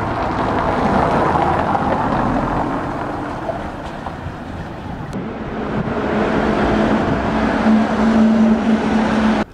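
Street traffic noise, with cars driving past that swell and fade. A steady low hum joins about halfway through and grows louder, then all of it cuts off abruptly.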